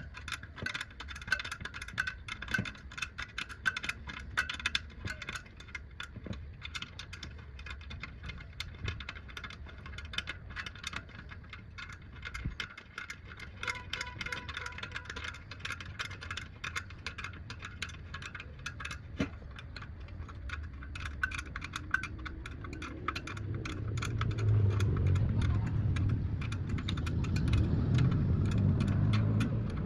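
Many quick metallic clicks and rattles, like hand tools being worked on metal. A louder low rumble comes in over the last several seconds.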